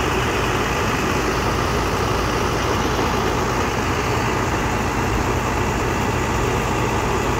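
A heavy engine running at a steady speed, loud and unchanging.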